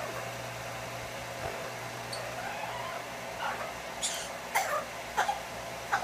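Yellow-naped amazon parrot giving faint wavering whistles, then about four short, sharp squawks in the last two seconds, over the steady whir of a blow dryer.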